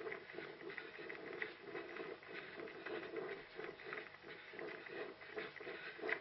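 Running footsteps of an orienteer, a steady rhythmic patter of strides, picked up by a head-mounted GoPro.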